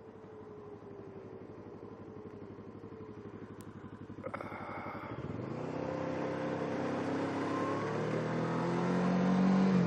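Kawasaki Ninja 650R's parallel-twin engine ticking over at low revs, then accelerating from about five seconds in, its pitch climbing steadily and loudest near the end.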